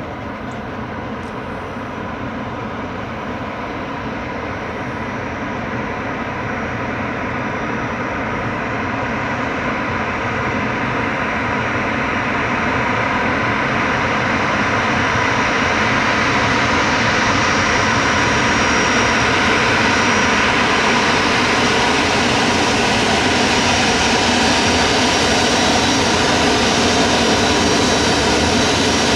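Jet engines of a Boeing 737-400 (CFM56-3 turbofans) growing steadily louder as the airliner approaches, then holding loud and steady over the second half. A high whine comes in over the rumble as it nears.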